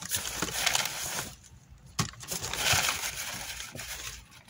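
Plastic bags and thin plastic gloves rustling and crinkling as tomatoes are handled and set into a plastic crate, with a sharp knock about two seconds in.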